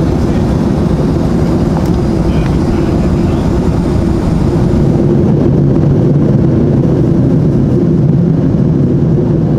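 Steady cabin drone of a Boeing 737-800 at cruise altitude: jet engine and airflow noise heard from inside the passenger cabin, heavy and low, a little louder from about five seconds in.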